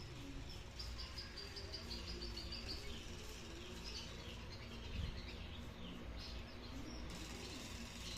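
Small birds chirping: a quick run of short, high chirps in the first three seconds, then scattered fainter chirps, over a steady low background noise.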